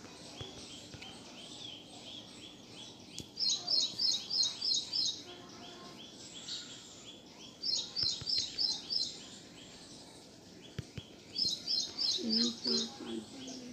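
A bird calling in three short runs of about six quick, high chirps each, a few seconds apart.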